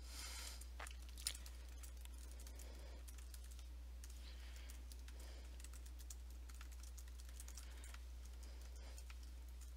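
Faint, irregular keystrokes on a computer keyboard, with one slightly louder click about a second in, over a steady low hum.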